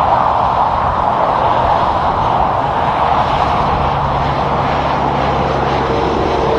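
Highway traffic passing at speed: steady tyre roar from cars and a pickup, with a tractor-trailer's diesel engine adding a low, steady drone from about halfway through as the rig goes by.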